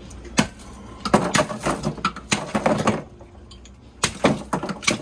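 Blocks of ice knocking and clinking against a plastic ice tray and the inside of a hard plastic cooler as they are tipped out and dropped in. There is one knock about half a second in, a run of clattering between about one and three seconds, and more knocks near the end.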